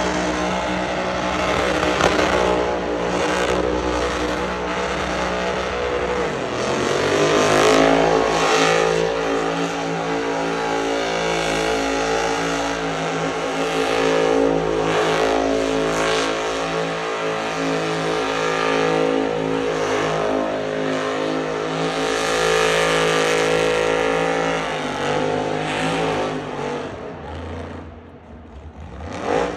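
Chevy pickup truck doing a burnout: its engine is held at high revs, climbing to a higher pitch about seven seconds in and holding there while the rear tyres spin and smoke. Near the end the revs drop off.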